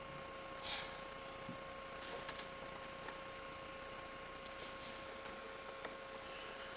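Quiet with a steady electrical hum and hiss, and a few faint rustles and ticks.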